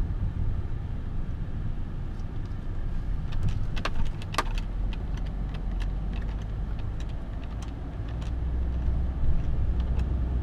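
Car cabin noise while driving: a steady low engine and road rumble that grows louder from about eight seconds in, with a few sharp clicks and rattles around four seconds in.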